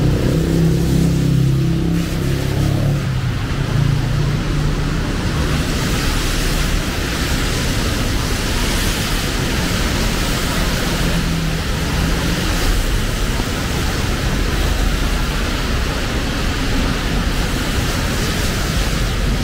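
Heavy rain falling steadily on a city street, with vehicle engines and tyres on wet road running underneath, strongest in the first few seconds.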